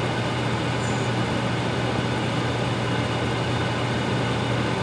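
A steady low hum over an even hiss, holding level without change.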